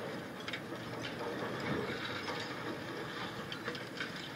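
A high-reach demolition excavator's concrete crusher working on a tower block: a steady machine noise with scattered sharp cracks and clinks of concrete breaking and debris falling.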